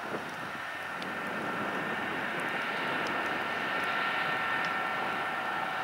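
Boeing 737-800 jet aircraft's turbines running on the ground: a steady whine of a few held tones over a broad rushing noise, growing slightly louder about a second in.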